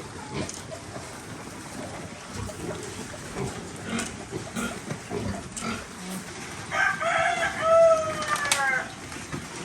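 A rooster crowing once, about seven seconds in, one call lasting about two seconds, over a background of scattered small knocks and low farmyard sounds.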